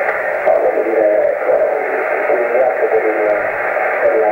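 A distant station's voice received over a Yaesu FT-857 on the 27 MHz CB band in upper sideband, heard through the radio's speaker. The speech sounds thin and narrow under a steady bed of static hiss.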